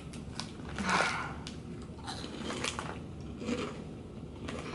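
Crisp Munchos potato chips being bitten and chewed, with short scattered crunches and one louder crackle about a second in.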